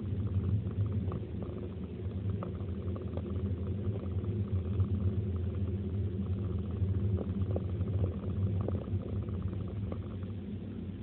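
A car's engine and tyres droning steadily from inside the cabin while it drives at highway speed, with light scattered ticks and rattles.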